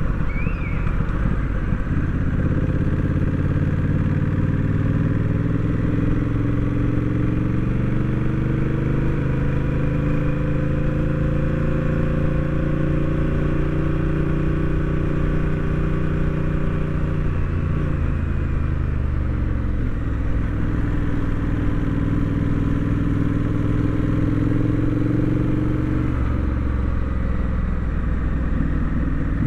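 Honda Rebel 1100 DCT's parallel-twin engine under way. Its pitch climbs steadily as the bike accelerates for about twelve seconds, holds, then falls as it slows. Partway through it picks up again, then eases off near the end.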